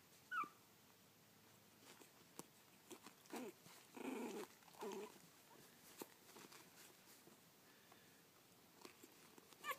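Young puppies whimpering: a single short high squeak falling in pitch about half a second in, a few low scuffling grunts around the middle, and a quick run of high squeaks at the very end.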